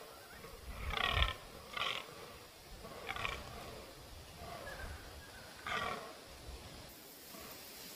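Rutting fallow buck croaking: a string of short, harsh calls, four clear ones unevenly spaced with fainter ones between. These are the rut calls bucks give for dominance.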